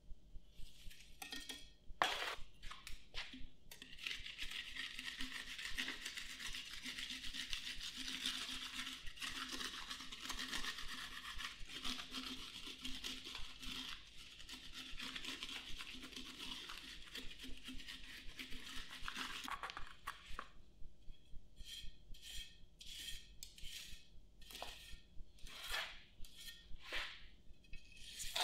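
Wet Mizzou refractory cement being packed and tamped into a forge mold with a trowel and a wooden stick. First come separate scrapes and taps, then a dense continuous scraping over a steady low hum for about fifteen seconds, then single trowel strokes as the top is smoothed.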